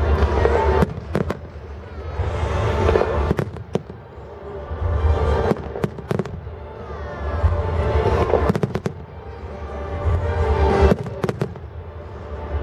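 Fireworks display: repeated sharp bangs and crackles from exploding shells, over music played loud for the show that swells and fades every few seconds.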